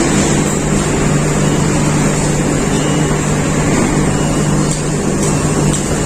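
Steady, loud mechanical hum with a constant low drone, with a few faint clicks near the end.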